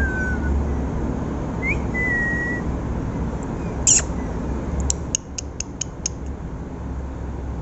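Two short whistled notes, the second rising and then held briefly, then a sharp click about four seconds in and a quick run of about seven clicks a second later, over a steady low rumble.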